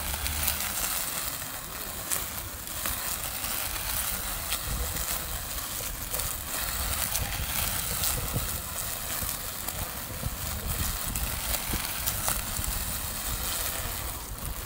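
Small cordless string trimmer running, its spinning head crackling as it cuts through grass, a steady noise scattered with quick ticks.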